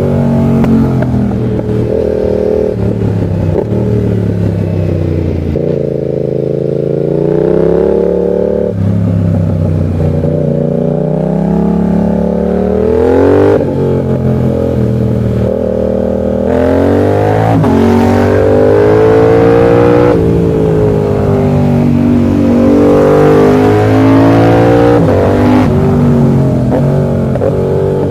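Yamaha MT-07's parallel-twin engine pulling under load, its revs climbing and falling again and again as the throttle is opened and closed through corners, with a few sudden drops in pitch, the sharpest about halfway through.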